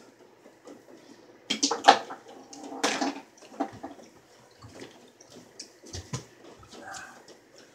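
A shot on a tabletop mini pool table: the cue tip clicks the ball, then small balls clack together and knock against the wooden rails in a quick run of knocks, loudest about two seconds in. A few lighter taps follow later.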